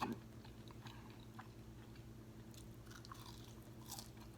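Close-miked chewing of Cajun fries: faint, scattered mouth clicks and smacks, over a steady low hum.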